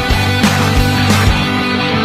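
Rock background music with distorted guitar and a steady drum beat.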